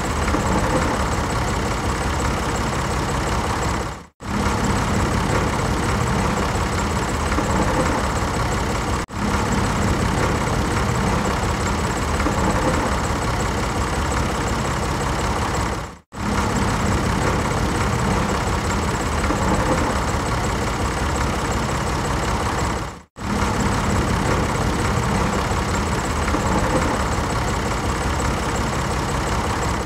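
Tractor engines running as a column of tractors drives by: a steady, dense engine din with no clear single note. It cuts out for a moment four times.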